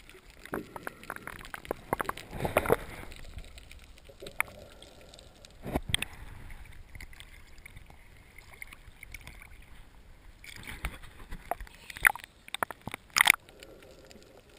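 Sea water sloshing and gurgling around a waterproof camera housing as it dips under and breaks the surface, with a few sharp splashes, the loudest near the end.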